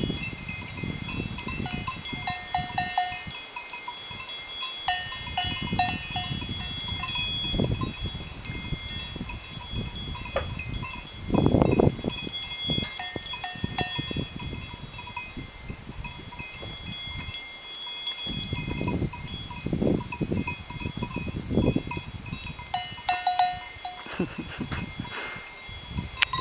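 Several cowbells on grazing cows clanking and ringing irregularly, each at its own pitch, over a low rumble that swells louder about halfway through.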